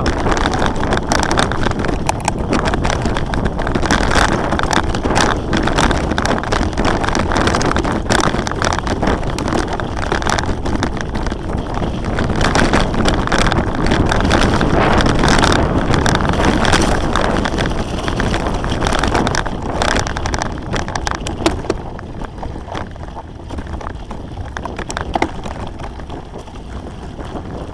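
A mountain bike ridden along a dirt singletrack trail: wind buffeting the microphone and the rush of the tyres on dirt, with frequent rattles and knocks from the bike over rough ground. Quieter over the last several seconds.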